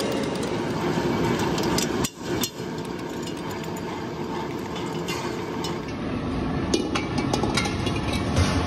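Steel-workshop machinery running steadily, with many metallic clicks and knocks on top and a short drop-out about two seconds in.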